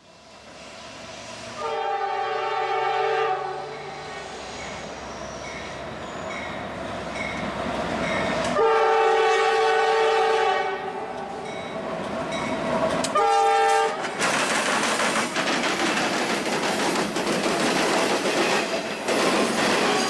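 Multi-note air horn of Norfolk Southern freight locomotive 4130, a GE AC44C6M, sounding two long blasts and a short one as the train approaches. After that comes the loud, steady noise of the lead locomotives' diesel engines and steel wheels on the rails as they pass close by.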